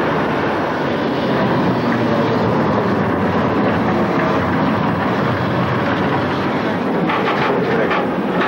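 Old electric street tram running along its street rails: a steady, dense rumble, with a quick run of clattering clicks near the end.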